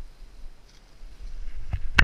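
Handling and rustling noise building as a shotgun is swung up through tall dry grass, with a knock shortly before the end, then a sharp shotgun shot at the very end.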